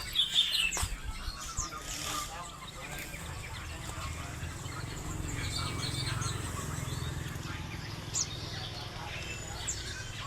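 Wild songbirds calling: many short chirps and quick sweeping whistled notes, overlapping irregularly, over a steady low rumble.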